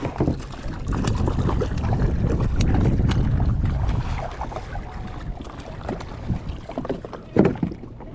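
Wind buffeting the microphone as a heavy low rumble for the first half, easing off, with scattered knocks and clicks, one louder knock near the end.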